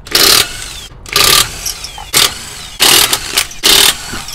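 Cordless impact wrench hammering in five short bursts as it loosens a car wheel's lug nuts.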